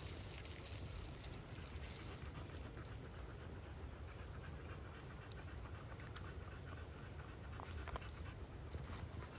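Quiet panting over a low steady rumble, with a few faint rustles and ticks like footsteps on dry leaf litter.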